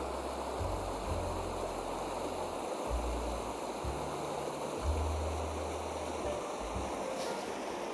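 Steady rushing noise of flowing water, with uneven low rumbles underneath and a single sharp click about seven seconds in.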